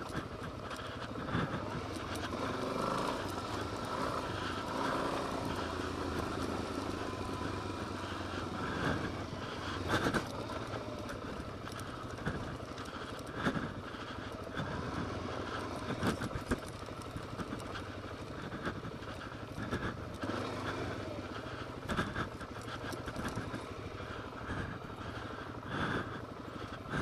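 2013 Suzuki DRZ 400S single-cylinder four-stroke engine running steadily while riding a rocky dirt trail, with a number of short sharp knocks scattered throughout.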